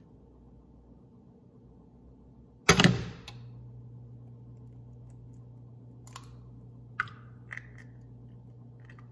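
An egg cracked open over a ceramic pan: one sharp crack about three seconds in, the loudest sound. A steady low hum starts right after it, and a few light clicks follow as the shell is pulled apart.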